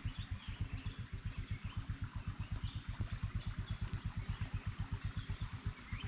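A small engine running steadily at idle, a low even pulsing of about nine to ten beats a second.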